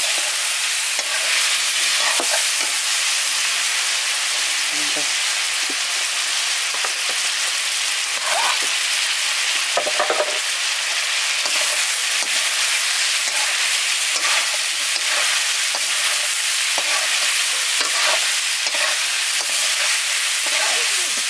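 Onions frying in hot oil in a cooking pan, sizzling steadily, with a spoon scraping now and then as they are stirred.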